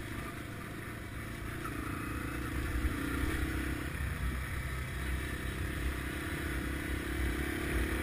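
Single-cylinder dual-sport motorcycle engine running at a steady cruise while riding a dirt road, with a strong low rumble.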